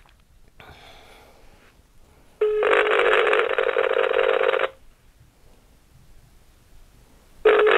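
Phone-line ringback tone heard through a smartphone's speaker: a steady, buzzy, low tone sounds for a little over two seconds, then starts again near the end. The call is ringing through and has not yet been answered.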